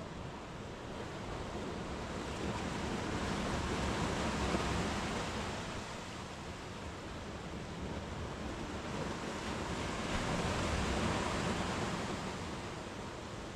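Sea waves breaking and washing up a sandy beach, the surf swelling twice, about four seconds in and again about eleven seconds in.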